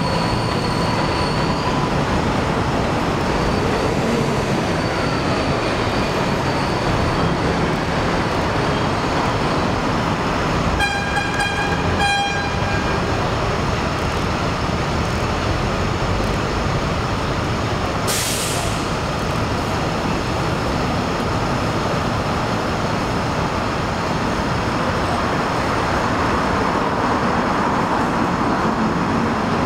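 R160 subway train pulling away along an elevated steel line, its wheels and motors running steadily. About eleven seconds in, a train horn sounds for just over a second in quick pulses, and about eighteen seconds in there is a short burst of air hiss.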